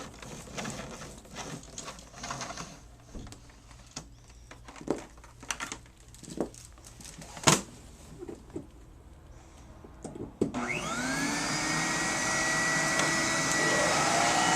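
A few clicks and knocks of handling. Then, about ten and a half seconds in, an Electrolux Epic 6500 canister vacuum is switched on: its motor whine rises quickly, levels off and runs steadily.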